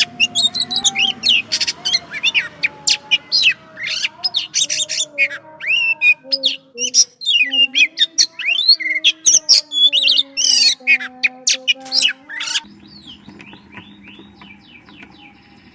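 Oriental magpie-robin (kacer) singing a rapid, varied run of loud whistles and chirps. The loud song stops abruptly about three-quarters of the way through, leaving only faint chirping.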